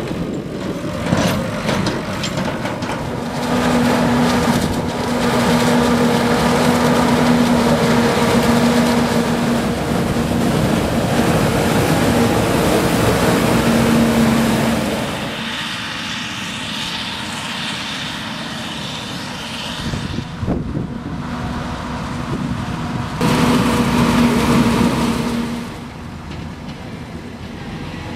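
A farm tractor's diesel engine and a CLAAS forage harvester running while harvesting maize silage. The machinery gives a steady, loud hum with a clear pitch. The hum drops away for several seconds in the middle and returns briefly near the end.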